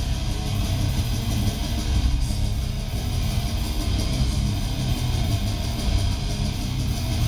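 Black metal band playing live: electric guitar over drums and bass, loud and dense with a heavy low end, without a break.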